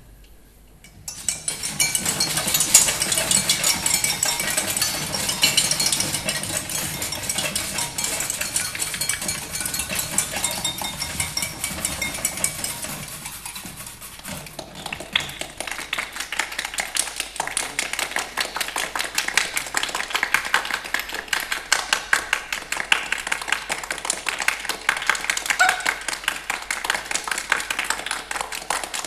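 Foley made with kitchen tools: a dense, fast clatter of scraping and tapping that starts about a second in, eases off briefly around halfway, then runs on as rapid, even clicking.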